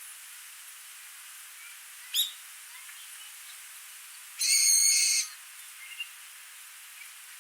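Steady rush of a small stream, with two bird calls over it: a quick chirp about two seconds in, and a loud, level call with a buzzy ring lasting nearly a second, about halfway through.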